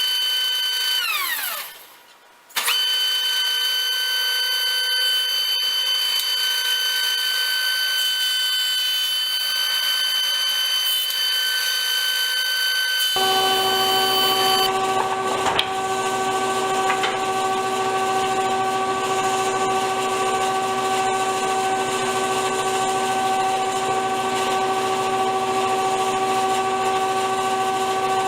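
Woodworking jointer's electric motor starts, winds down within about two seconds, then starts again and runs with a steady whine. About 13 seconds in, a second, lower-pitched machine hum with a rushing noise joins it.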